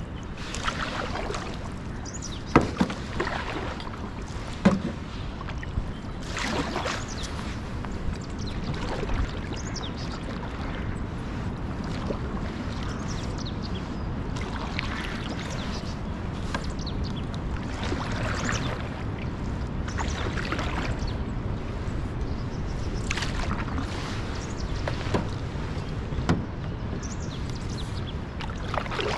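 Canoe paddle strokes dipping and splashing in the river every few seconds, over a steady rush of wind and water. There are a couple of sharp knocks early on.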